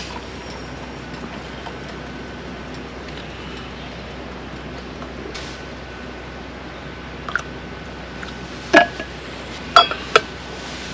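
Steady hiss, with a few sharp clinks of dishes or cookware in the last few seconds.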